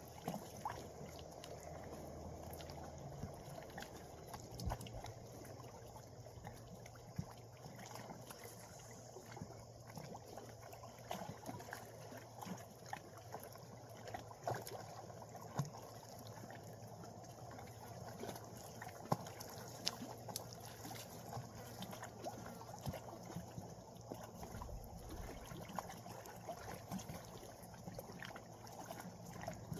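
Gentle water lapping and trickling, low and steady, with many light scattered clicks and ticks.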